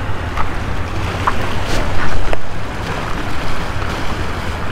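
Wind rumbling on the microphone over small waves washing against the jetty rocks, with a few short clicks.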